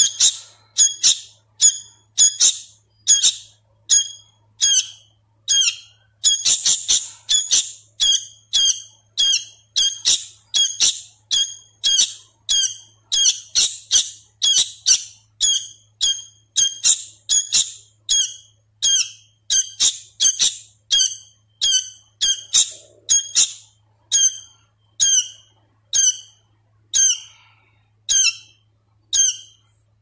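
Fledgling sooty-headed bulbul calling: a long, steady series of short, high, squeaky chirps, about two a second, a little slower near the end. It is a hand-fed young bird still learning its song.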